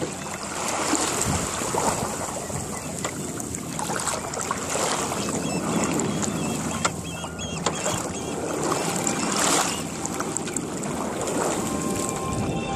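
Water rushing and splashing along the hull of a small melonseed sailing skiff under way, swelling and easing every few seconds as waves pass.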